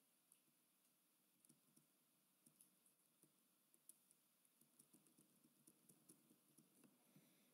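Near silence with faint, irregular clicks of computer keys being tapped, coming more often in the second half.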